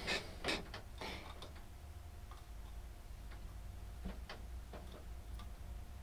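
Light clicks and taps from a tin can being handled, a quick cluster of louder ones in the first second or so, then scattered irregular ones, over a steady low hum.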